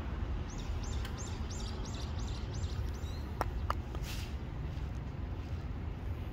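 A small bird repeating a short high chirp, about three a second for some two seconds, over a steady low outdoor rumble. Two sharp clicks follow about three and a half seconds in.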